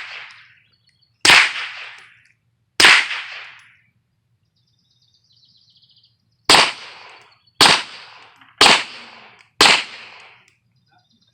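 Six shots from a suppressed 9mm pistol: two about a second and a half apart, then after a pause four more at about one a second, each a sharp crack with a short fading tail.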